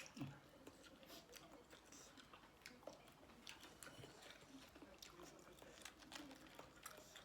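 Faint close-up chewing of a spicy seafood papaya salad with shrimp and squid: soft wet mouth clicks and smacks scattered irregularly.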